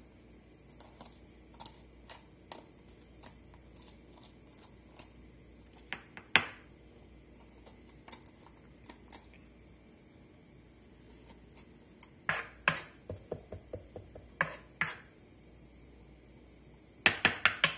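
Scattered faint clicks and taps from a green bell pepper being hollowed out by hand, with a quick run of louder clicks near the end as a metal spoon scrapes and knocks inside the pepper.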